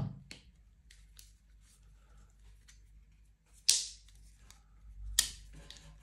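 A Bosch folding multitool being handled: faint light clicks, then two louder sharp metal clicks, one about four seconds in and one about five seconds in, each dying away quickly.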